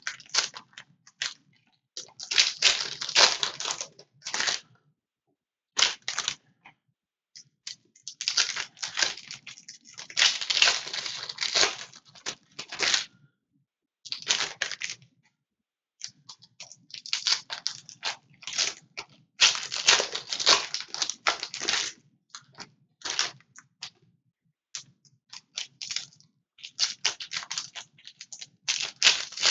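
Foil trading-card pack wrappers being torn open and crinkled by hand, in irregular crackling bursts of a second or two with short pauses between them.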